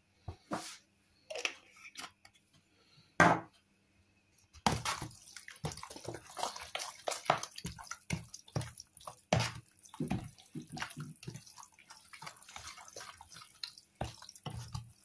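Hand mixing wet grated raw potato mass in a plastic tub: irregular wet slapping and squishing strokes, dense and steady from about four and a half seconds in. Before that, a few separate knocks, the loudest about three seconds in.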